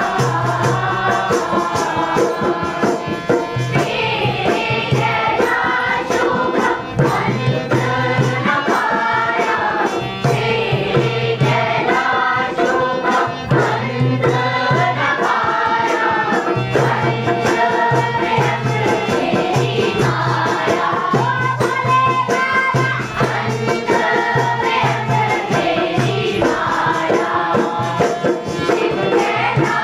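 Song with voices singing a melody over a drum beating a steady, repeating rhythm.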